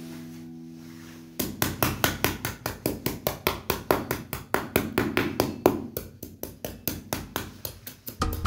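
A small hand trowel striking and scraping the sand in quick repeated strokes, about five a second, starting about a second and a half in.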